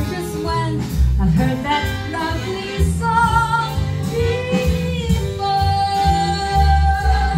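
Recorded music of a live band with a singer, played back over Genesis hi-fi loudspeakers: held, wavering vocal notes over a heavy, steady bass line.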